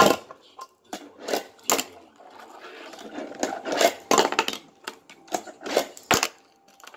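Fingerboard skated by hand: a string of sharp clacks as the small board pops, lands and strikes the handrail, with a softer rolling noise from its wheels on the tabletop around the middle.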